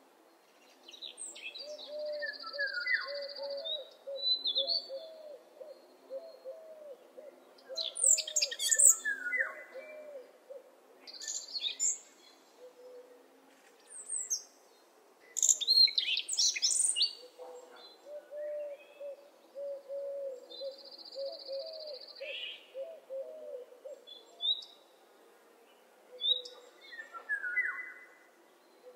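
Morning birdsong: birds singing and calling with high chirps, trills and whistles. Under them, a quick run of repeated low notes goes on for several seconds twice.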